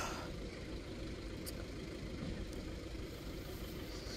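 Steady low rumble of an idling engine.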